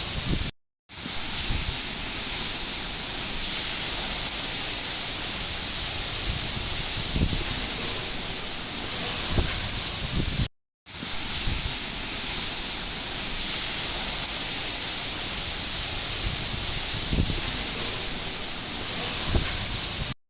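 Steady hiss of heavy rain, with a few faint low thuds. It cuts to silence for a moment twice, about a second in and about ten seconds in, then fades straight back in.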